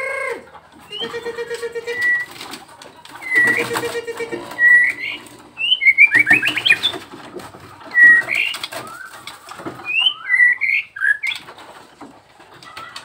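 Nias white-rumped shama singing: a series of loud whistled phrases and quick rising trills, with low, pulsed hooting notes twice in the first four seconds.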